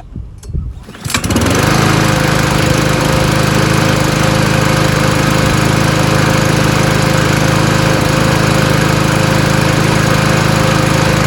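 Craftsman M215 lawn mower's 159cc single-cylinder gas engine pull-started for the first time, catching on the first pull about a second in without priming, then running steadily at a constant speed.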